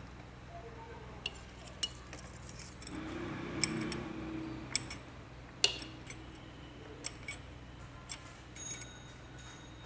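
Metal hand tools clinking and tapping on a motorcycle engine's valve gear while the tappet clearance is being set: a series of separate sharp clicks, the loudest about five and a half seconds in, over a faint steady low hum.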